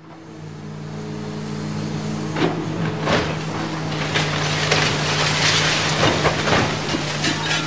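Dubbed-in engine sound effect of a heavy vehicle or machine, fading in from silence and settling into a steady running hum, with a series of clanks and knocks over it from about two seconds in.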